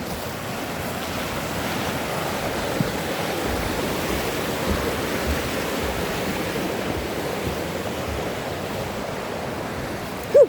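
Steady rush of running water. Near the end, one brief sharp squeak.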